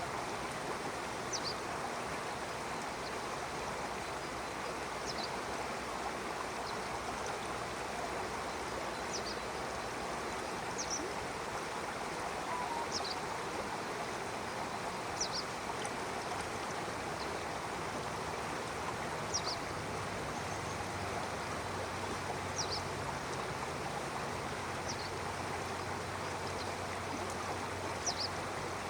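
A stream running steadily, with a bird giving a short, high chirp that falls in pitch, repeated about every two to four seconds.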